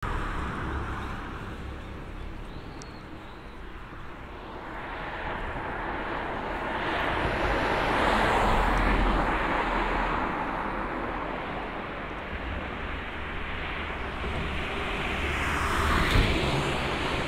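Motor vehicles passing along a road, a steady rush that swells as one goes by about halfway through and another near the end.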